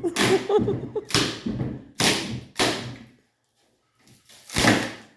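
Stapled shipping crate packaging being torn and pried apart by hand: a series of sharp ripping, cracking noises, about five in all, the last after a short pause near the end.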